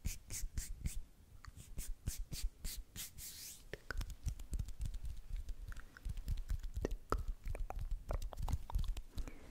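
Hands rubbing together right at a microphone in even hissing strokes, about three a second, with one longer swish near the middle. Then the fingers move and brush close to the mic in a quicker run of soft clicks, crackles and low thumps.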